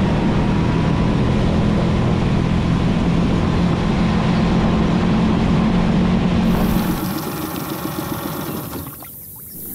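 Small outboard motor on a jon boat running steadily under way with a low drone. About seven seconds in it is throttled back, and near the end it drops to a much quieter low idle.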